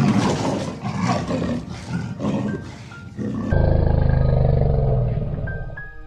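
A big cat roaring and growling: a run of short, harsh roars over the first three seconds or so, then a longer, deep growl, over background music.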